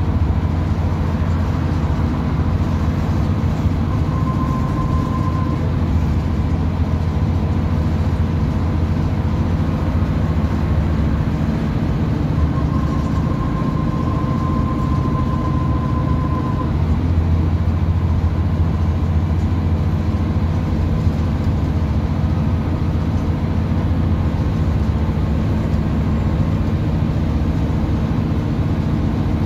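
Scania N94UB Omnicity single-deck bus under way, heard from inside the passenger saloon: a steady low diesel engine and road rumble. A thin high whine runs under it and swells twice, briefly and then for a few seconds.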